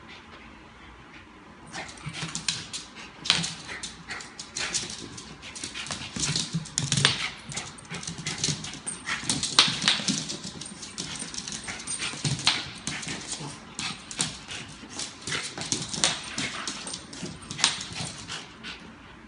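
A small Bichon-poodle dog's claws clicking and scrabbling on a hard smooth floor as it chases and paws a small ball, a quick irregular patter of taps starting about two seconds in.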